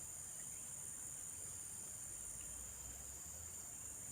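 Steady, high-pitched chorus of insects trilling, crickets or the like, without a break.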